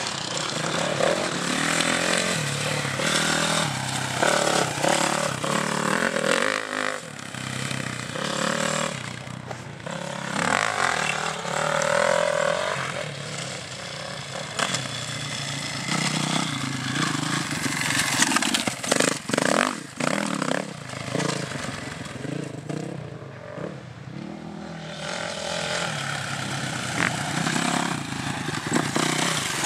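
450 cc four-stroke motocross bikes running on the track, the engine note rising and falling as the throttle is opened and closed, with a brief quieter stretch about three quarters of the way through.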